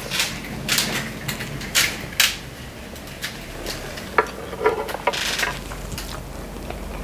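Metal spoon and fork clinking and scraping against a ceramic plate as food is scooped up. It comes as several short clinks in the first couple of seconds, with a few more about four to five seconds in.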